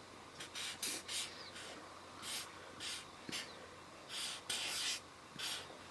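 A marker being drawn across a paper sign while letters are written: about ten short, separate strokes with pauses between them.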